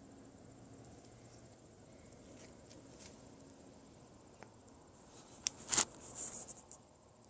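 Faint outdoor ambience: a steady high, rapidly pulsing trill over a faint low hum, with a few sharp clicks about five and a half to six seconds in.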